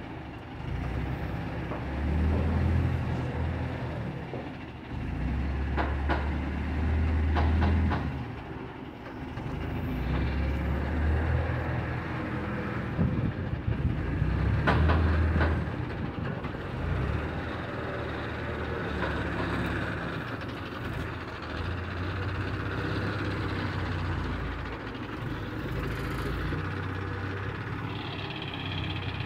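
Diesel engine of an Escorts Hydra 12-ton pick-and-carry crane running as the crane works, its level rising and falling in stretches. A few sharp clanks come about a quarter and half way through.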